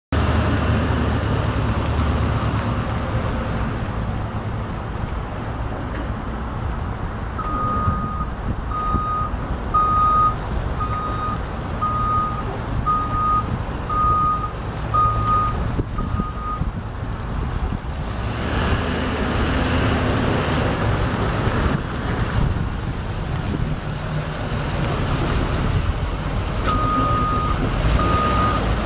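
Chevrolet Kodiak 5500 service truck's engine running as it manoeuvres, with its reversing alarm beeping about once a second, first for about nine seconds from a few seconds in and again near the end.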